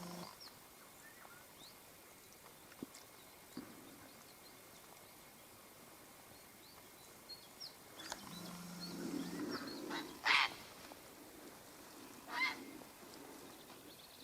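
Small birds chirping faintly, with two short, harsh animal calls near the end, about two seconds apart.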